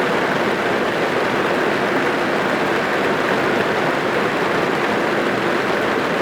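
Steady rain falling on a car's roof and windows, heard from inside the car as an even, unbroken hiss.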